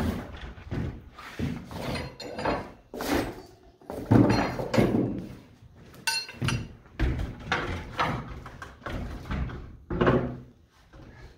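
Irregular knocks and thuds of hand-tool work on a wooden roof panel: hammer blows and prying at plywood and asphalt shingles, some close together and others spaced out.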